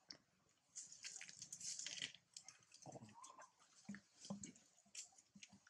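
Faint rustling and scattered clicks of macaques moving and grooming on dry leaves and concrete, with a brief high squeak about three seconds in.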